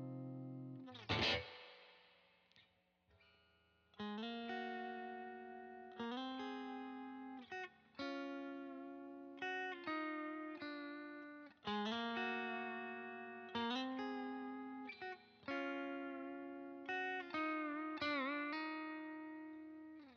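Alder-body, maple-neck single-coil electric guitar played with a crunch (light overdrive) tone: chords struck about every two seconds and left to ring and fade. A brief scratchy swipe comes about a second in, and near the end the chord's pitch dips and wavers together.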